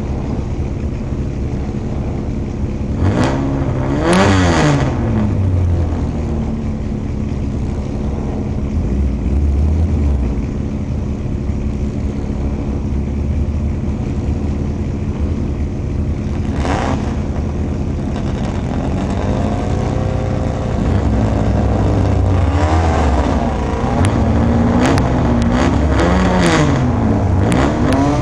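Vintage race car engines idling steadily, with throttle blips that rise and fall in pitch: one sharp blip about three to four seconds in, then a run of repeated revs through the last third.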